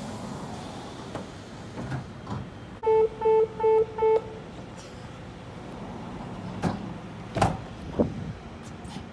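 Door-closing warning chime on an NJ Transit Multilevel coach: four quick, identical beeps at one pitch, signalling that the doors are about to close. A few sharp knocks follow near the end.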